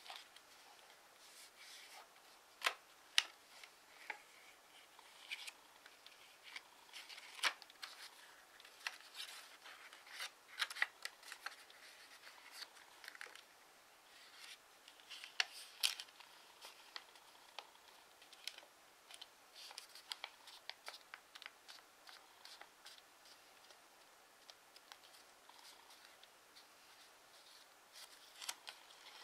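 A square of origami paper being folded and creased by hand: irregular crisp crackles and rustles, with a few sharper snaps as folds are pressed.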